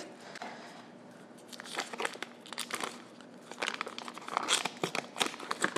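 Paper butter wrapper crinkling as it is peeled off a stick of butter, in a string of soft, irregular crackles that grow louder near the end.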